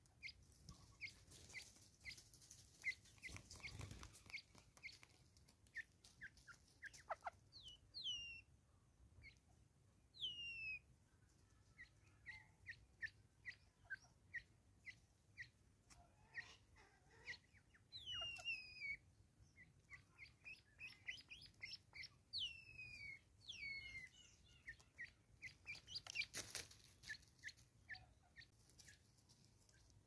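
Faint bird chirping: a run of short high chirps, a few a second, broken by several longer falling whistled calls. Scattered soft taps and scratches come from a Natal spurfowl pecking at a tree stump, the loudest one about three-quarters of the way through.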